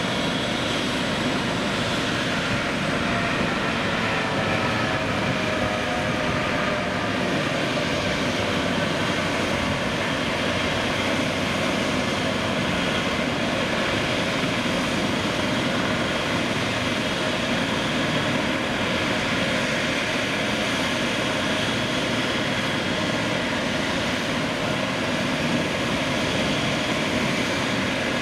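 Airbus EC135 helicopter on the ground with its turbines running and main rotor turning: a steady whine and rotor whoosh. Several whining tones slowly drop in pitch over the first ten seconds or so.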